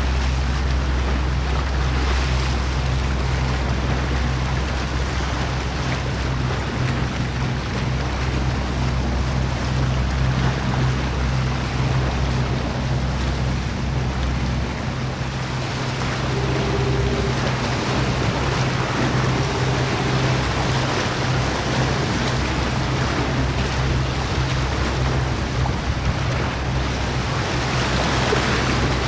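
Steady low ship's engine drone over the noise of wind and moving water. The deepest part of the drone weakens about halfway through.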